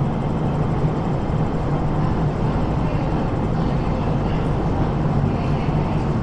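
MTR Tseung Kwan O Line metro train standing at an underground platform with its doors shut, its running equipment giving a steady low hum over the platform's background rumble.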